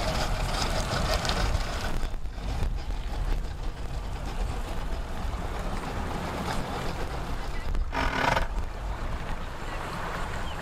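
Boat engines, an outboard and a personal watercraft, idling low and steady as they manoeuvre slowly, with wind buffeting the microphone.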